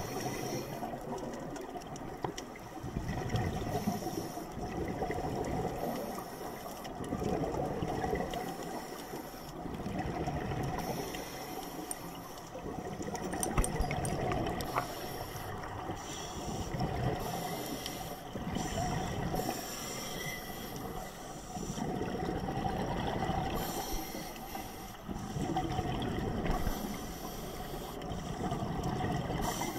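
Scuba diver breathing through a regulator underwater: a hiss on each inhale, then a gurgling rush of exhaled bubbles, in a slow repeating rhythm every few seconds.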